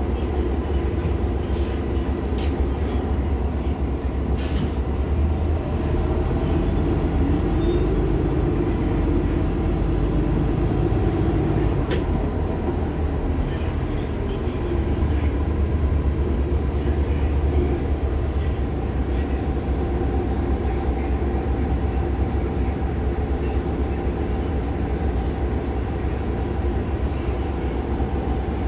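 Cabin ride noise of a 2015 Nova Bus LFS articulated hybrid bus under way: a steady low drone from its Cummins ISL9 diesel and Allison hybrid drive, with road rumble. A faint high squeal glides briefly about halfway through, and a couple of sharp clicks sound.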